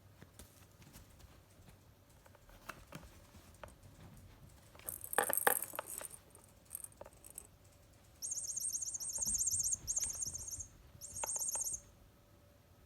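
A cat toy rattling and jingling: scattered light clicks, a louder rattle about five seconds in, then three bursts of high-pitched jingling.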